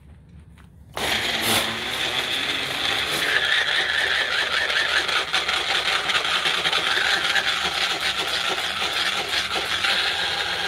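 Magic Bullet blender switching on about a second in and running loudly and steadily, its blade grinding a thick pesto in the cup.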